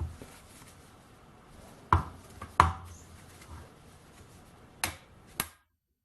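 Ball peen hammer striking a manual impact driver to break loose a stuck bolt: three sharp metallic blows (one at the start, then two about 2 and 2.6 seconds in), followed by two lighter clicks near the end.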